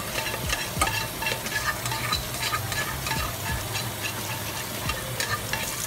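Kitchen faucet running steadily onto cooked white rice in a stainless steel colander, the water splashing and draining through it into the sink as the rice is rinsed of its starch.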